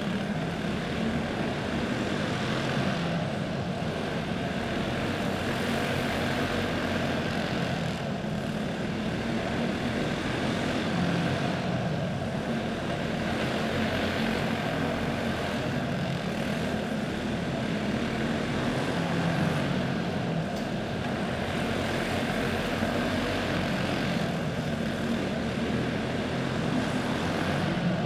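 Several flat karts with OHV clone single-cylinder four-stroke engines running laps together on a dirt oval. Their engines make a continuous drone that rises and falls in pitch as the karts accelerate and lift.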